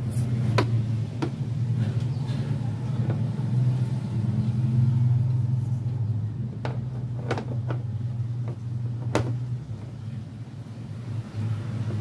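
Sharp plastic clicks as a TV's bezel frame is set back onto the LED panel and pressed into place, about five of them, over a steady low rumble that is louder than the clicks.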